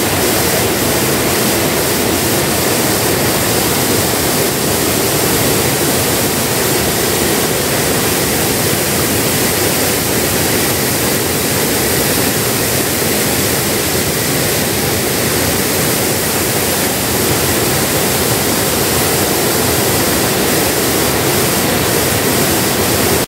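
Wide waterfall pouring into a pool below: a loud, steady rush of falling water that does not let up.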